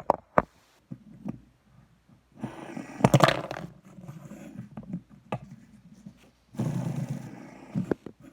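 A few sharp knocks of a phone being set down, then two longer bursts of rough rustling handling noise close to the microphone, with scattered knocks.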